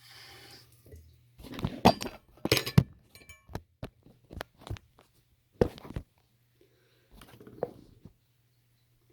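Objects being handled and set down: a run of sharp knocks, clicks and clinks, loudest about two to three seconds in, with a brief rustle at the start.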